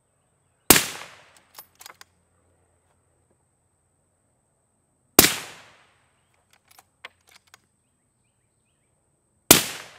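Three suppressed shots from a .308 Winchester bolt-action rifle fitted with a Griffin Armament DL7 suppressor, about four and a half seconds apart, each a sharp crack trailing off over about half a second. Short clicks follow the first two shots as the bolt is worked.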